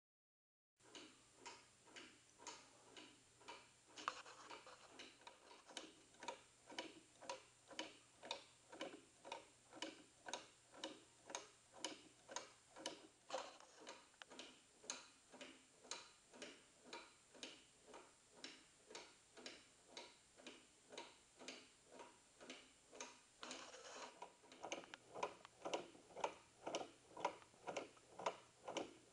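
Wooden gear pendulum clock ticking: its wooden escapement and ratchet click at an even, steady pace, faint at first and louder near the end.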